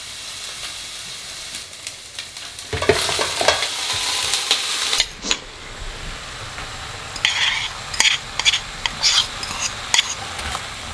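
Vegetables sizzling as they stir-fry in a stainless steel pan, the sizzle growing louder about three seconds in. In the second half a spoon scrapes sauce from a bowl into the pan and stirs, with a series of short clinks and scrapes.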